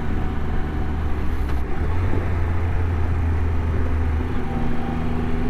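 Motorcycle engine running steadily at cruising speed, heard from the rider's seat with road noise; the low engine note rises slightly about two seconds in.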